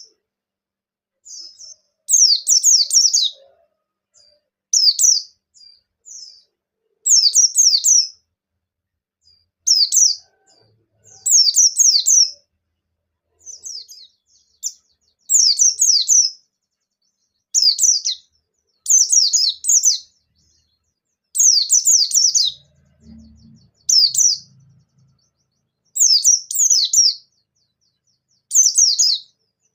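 White-eye (pleci) singing energetically: short bursts of rapid, high-pitched chirping notes, one phrase about every two seconds. It is a lure song of the kind used to prompt caged white-eyes to sing back.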